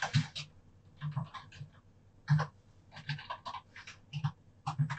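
Typing on a computer keyboard: irregular clusters of keystrokes with short pauses between.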